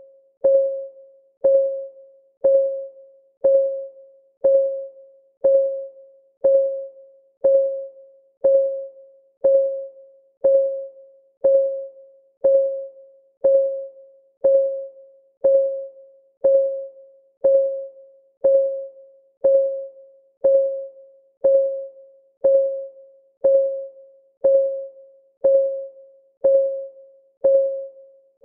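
Countdown timer's clock-tick sound effect: a short tick with a brief pitched ring, repeating steadily once a second.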